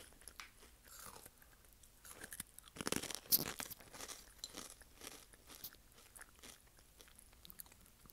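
A mouth chewing a crunchy orange snack, picked up close on an earphone microphone: scattered crunches and wet mouth clicks, the loudest cluster about three seconds in.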